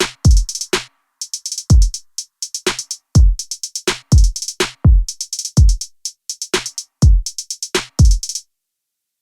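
Background music: an electronic drum-machine beat with deep kick drums that drop in pitch and quick hi-hat ticks between them. The beat cuts out near the end.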